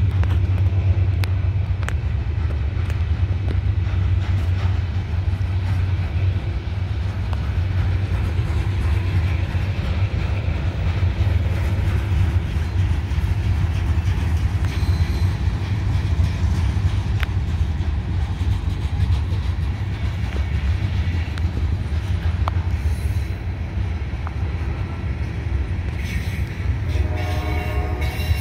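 Norfolk Southern ballast train's hopper cars rolling past, a steady heavy rumble with scattered sharp clicks of wheels on rail. A brief pitched tone comes in near the end.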